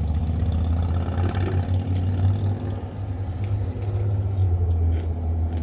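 Steady low motor-vehicle rumble, with a few faint short clicks over it.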